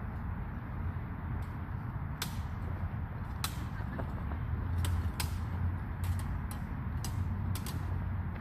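Backswords clashing blade on blade in a fencing bout: about ten sharp, irregular clacks, starting about two seconds in and coming faster through the second half, over a steady low rumble.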